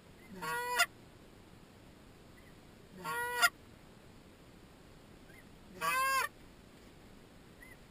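Goose honks: three single calls about three seconds apart, each about half a second long, a brief low note breaking up into a high honk.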